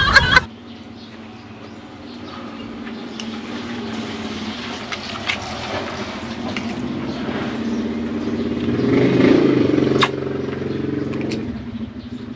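A motor vehicle engine running with a steady hum, growing louder to a peak about nine seconds in and then fading, with a few light clicks over it.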